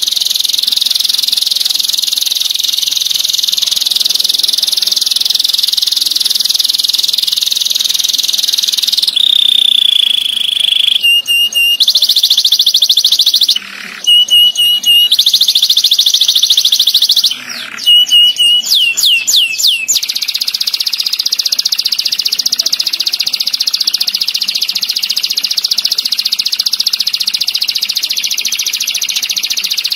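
Domestic canary singing long, rapid rolling trills in a high, dense band. About nine seconds in there is a short pure whistled note, then choppy phrases with brief breaks and a quick run of falling notes before the rolling trill resumes.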